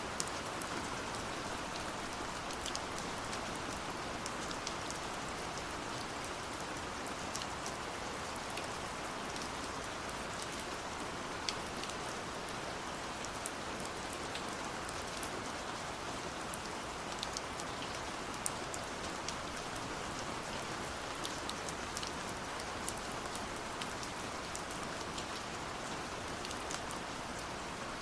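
Steady rain falling, an even hiss with many scattered individual drops ticking sharply on a surface.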